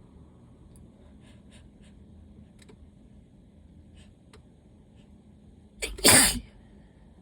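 A person sneezing once, loudly, about six seconds in, from allergies. A few faint, short sounds come before it.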